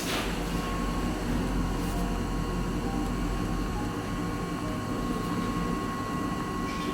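Steady fan-like hum with a faint high whine, and a short scrape or rustle near the end.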